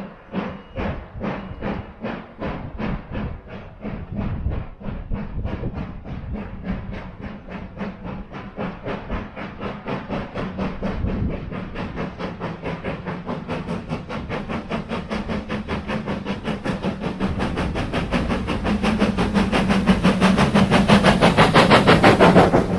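Flying Scotsman's three-cylinder steam locomotive exhaust chuffing as it works hard. The beats quicken steadily from about two to about five a second and grow louder and brighter, over a steady hum. The sound drops away abruptly at the very end.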